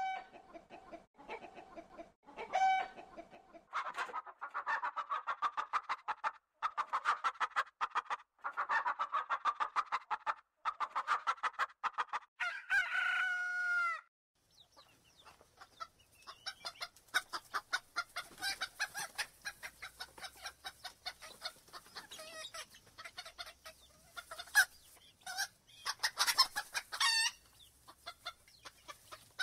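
Domestic chickens clucking in rapid runs of short calls. A longer call with falling pitch bends rises out of the clucking about 13 seconds in. After a short break comes a busier stretch of overlapping clucks with another longer call near the end.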